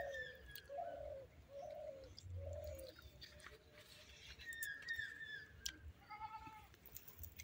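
Faint dove cooing: a run of four low coos, a little under a second apart, with a thin, higher bird call falling in pitch twice in the background.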